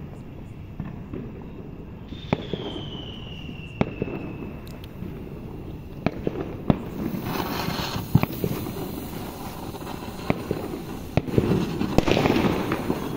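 Handheld baby pencil firework burning after being lit: a steady fizzing hiss of spraying sparks, dotted with sharp crackles, growing louder near the end.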